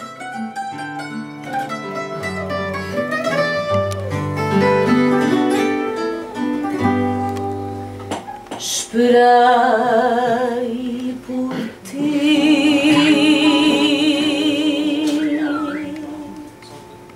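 Live fado: a plucked guitar phrase, then a woman singing long notes with wide vibrato from about nine seconds in, fading near the end.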